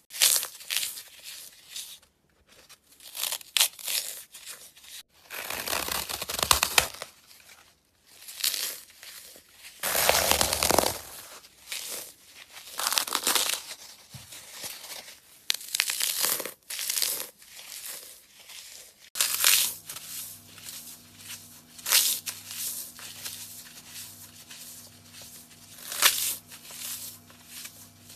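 Baked floral foam crushed and crumbled between the fingers: dry crunching and crackling in irregular bursts, some long and some short. About two-thirds of the way through a faint steady low hum starts under the crunching.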